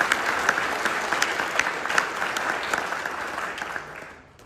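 Audience clapping, a dense stretch of many hands that dies away about four seconds in.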